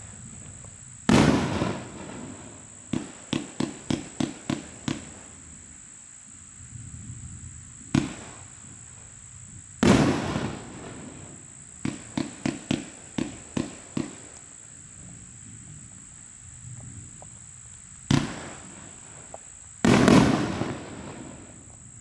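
A 25-shot consumer fireworks cake (Raccoon Fireworks 'Evil Temptation') firing: loud booming shots, three of them with long ringing tails, plus two rapid strings of about eight sharp pops.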